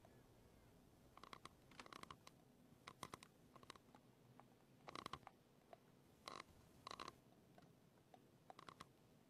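Faint teeth grinding: short, irregular clusters of little clicks and crunches as teeth rub and snap together. The grinding is the sign of the amphetamine diet pills she is taking.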